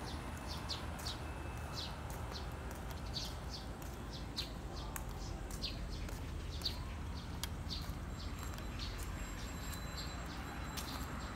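Small birds chirping: many short, high, falling chirps at irregular intervals, over a low steady rumble.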